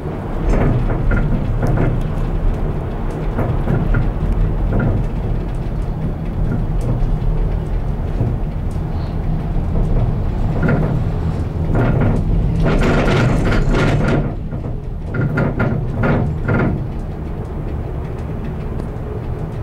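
Gondola cabin riding the lift with a steady low rumble and scattered clicks and knocks. About twelve seconds in, a louder rattling clatter lasts a couple of seconds, followed by a few sharp knocks.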